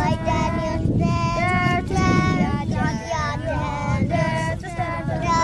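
Children's and a woman's voices singing a song together in held, gliding notes, with a low rumble underneath.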